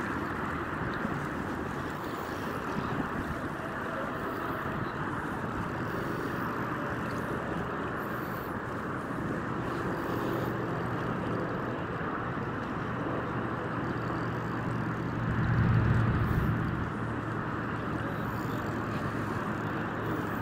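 Steady wind noise on the microphone over open water, with a low motor hum underneath that swells louder about fifteen seconds in.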